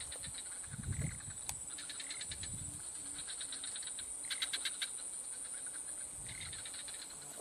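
Insects chirring: a steady high-pitched drone, with repeated bursts of rapid pulsing calls about a second long.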